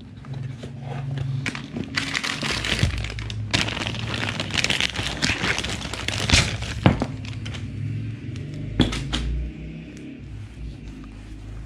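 Plastic wrapping crinkling and rustling as the scanner's cables are handled and pulled from their bags, with a few sharp clicks and knocks from the cable connectors and case. The crinkling is densest in the middle and thins out near the end.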